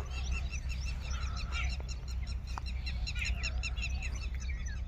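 Birds chirping, many short notes repeated quickly and overlapping, over a steady low rumble.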